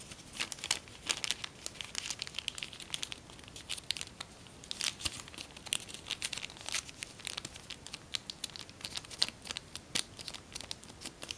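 Sheet of tissue foil origami paper crinkling and crackling as it is folded and creased by hand, in quick, irregular crackles.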